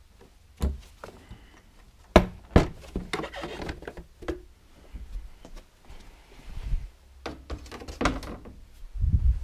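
Handling noises: a series of sharp knocks and dull thunks, with rustling in between and a heavier low thud near the end.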